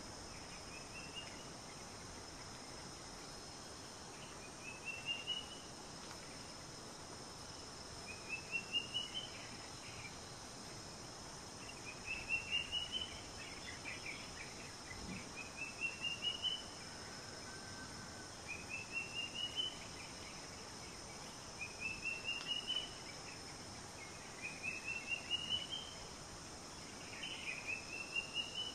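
Wild ambience: a steady high insect drone, with a bird repeating a short rising trill of quick notes about every three to four seconds.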